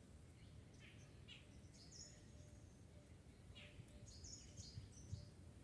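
Faint wild bird calls: a few short, high chirps and whistles, about two seconds in and again around four seconds in, over a low steady hiss.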